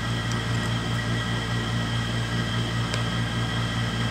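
Steady machine hum with an even hiss and a few fixed high tones, unchanging throughout, with two or three faint clicks.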